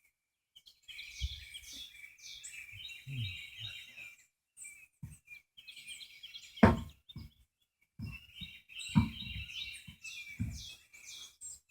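Birds chirping and calling in quick bursts, with several dull knocks and one sharp clank about two-thirds of the way through.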